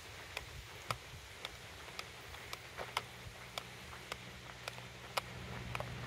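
Footsteps on a woodland trail, sharp steps at a steady walking pace of about two a second, over a low steady hum that swells slightly near the end.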